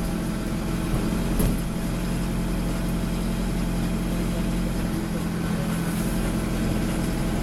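Diesel engine of an Ikarus 405 city bus running steadily, heard from inside the passenger cabin, with one brief knock about a second and a half in.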